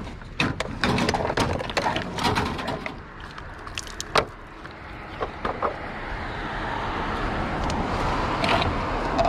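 A quick run of knocks and clatter, like hard objects being handled and set down, over the first four seconds. Then a steady vehicle noise grows gradually louder.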